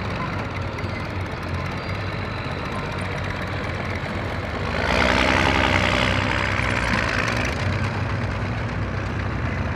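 Military armoured vehicles, tracked and wheeled, driving past on a dirt track with a steady low engine rumble. About five seconds in the sound swells into a louder rushing stretch of two to three seconds as one passes closer, then settles back.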